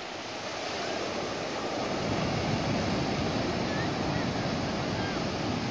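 Surf breaking and washing up the beach, swelling about a second in and staying loud. A few faint, short seabird calls sound above it.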